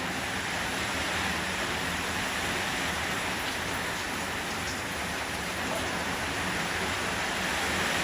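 Steady rain falling, blended with the continuous rush of a mountain stream.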